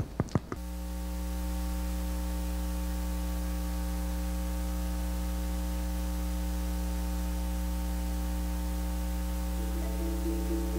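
Steady electrical mains hum with a buzzing stack of overtones, cutting in suddenly just after the start and holding level throughout. Near the end, faint ringing handbell tones begin underneath it.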